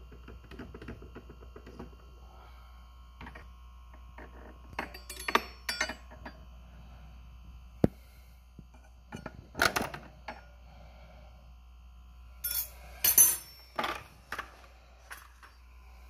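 A metal blade scraping, clicking and clinking against a jammed coffee capsule and the plastic brew head of a Nespresso Inissia as the capsule is prised out. The clinks come irregularly, in clusters about 5, 10 and 13 seconds in, the loudest near 13 seconds.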